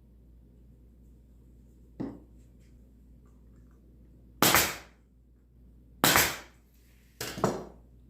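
A 1/4-inch crown stapler driving staples into soft poplar: a light click about two seconds in, then three sharp shots roughly a second and a half apart, the last one doubled.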